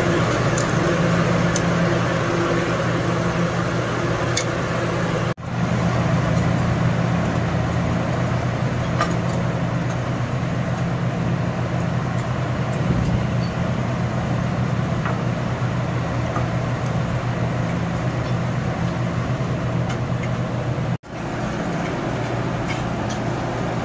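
Steady low droning hum with a rushing hiss over it, the running noise of a street sausage stall's grill and the busy roadside around it. The sound breaks off abruptly twice.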